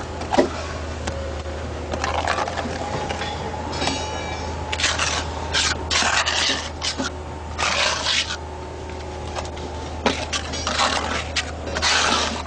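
Irregular scraping and rubbing strokes from work on concrete wall panels, several in quick succession about five seconds in and again near the end, over a low steady hum.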